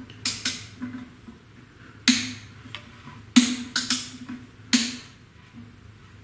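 Irregular sharp metal clicks and knocks, each with a brief ring, as a dial indicator rig is turned around an aluminium bellhousing bore to check its runout. The loudest knocks come about two, three and a half, and nearly five seconds in.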